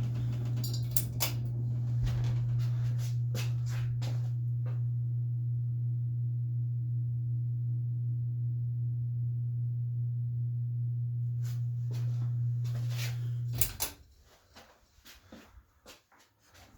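Small hugger ceiling fan's motor humming steadily, with scattered clicks and knocks; after a cluster of clicks the hum cuts off suddenly about three-quarters of the way through.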